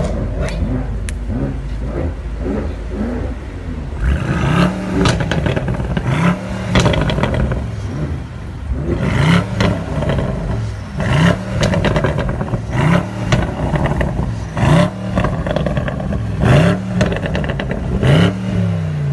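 BMW M8's twin-turbo V8 being revved in repeated throttle blips, about ten in a row, each rising and falling in pitch, with crackles and pops from the exhaust as each rev drops back. It runs more steadily for the first few seconds before the blips start.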